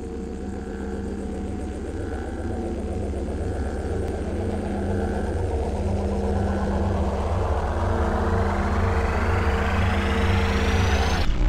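A steady low droning hum with a regular low throb. About seven seconds in, a whooshing sweep joins it, rising in pitch and growing louder until the sound cuts off suddenly near the end.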